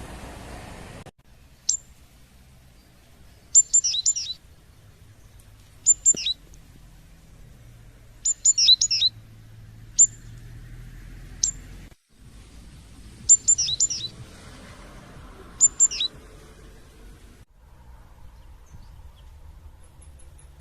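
Small songbird chirping: short, high notes that drop in pitch, in quick clusters of two to four every couple of seconds, over a faint low rumble.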